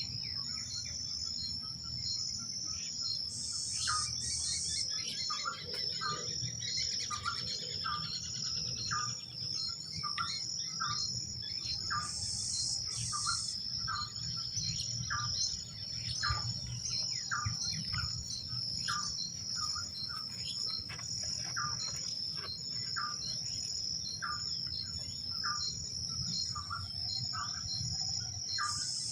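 Dawn chorus of birds calling repeatedly over a steady, high-pitched insect drone, with three short, louder high buzzes spaced several seconds apart.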